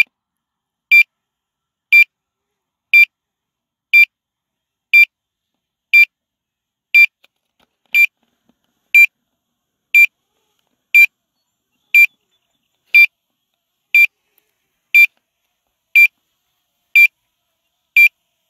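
Potensic Atom drone's remote controller beeping: one short, high beep every second, steady and even. It is the alert that sounds while the drone flies its return-to-home.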